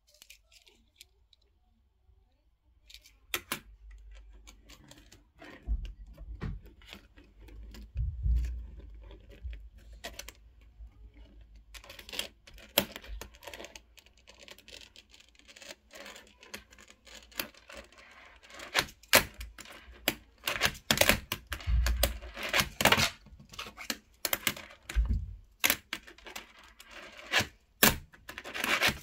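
Fingerboard being ridden with the fingers on a laptop lid: small wheels rolling and the deck and trucks clacking and knocking on the hard surface in quick sharp clicks. It starts after a few quiet seconds and gets busier in the second half.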